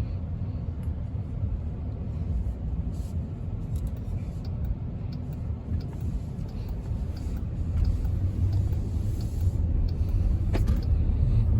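Steady low rumble of a Jeep Wagoneer with the twin-turbo Hurricane inline six cruising gently at low speed, heard inside the cabin: quiet engine and road noise, growing a little louder about eight seconds in.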